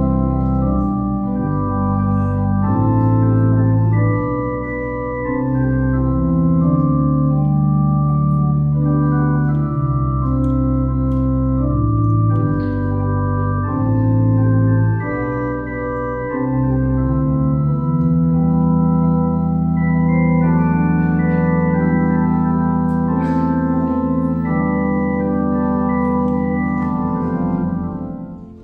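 Church organ playing slow, sustained chords. It settles on a long held chord over a low bass note that is released near the end.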